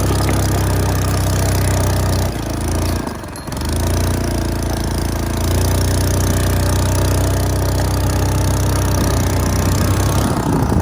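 Honda Motra's small single-cylinder four-stroke engine running steadily under way, its note dipping briefly about two to three seconds in before settling again.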